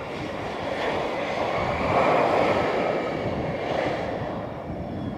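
Twin rear-mounted turbofan engines of a Bombardier CRJ-200 regional jet running as it rolls past on the runway: a rushing jet noise that swells to its loudest about two seconds in and then fades as the aircraft moves away.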